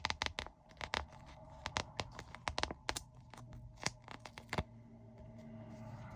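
Small plastic packets of diamond painting drills being handled and sorted, crinkling with a quick run of clicks and crackles that stops about four and a half seconds in.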